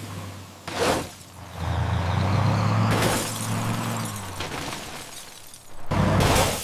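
Sound effects: a low, steady engine-like hum with sudden crashing, shattering noises, the loudest near the end.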